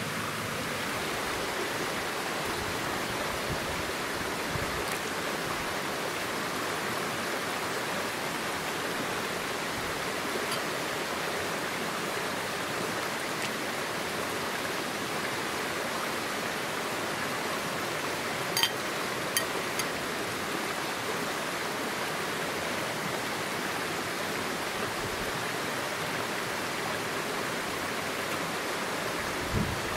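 Steady rush of flowing water, with a couple of light clicks about two-thirds of the way through.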